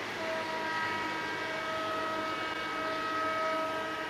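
EMD GT46MAC (WDG4) diesel-electric locomotive sounding a long horn blast, a chord of several steady notes held almost to the end, over the rumble of the approaching train.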